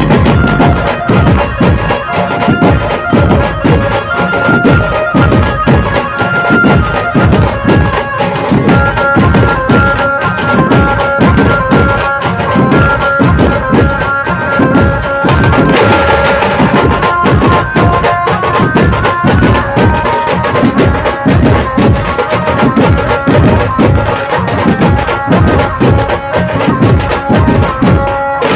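Dhumal band of many large barrel drums beating a fast, driving rhythm together, with a held melody line running over the drumming.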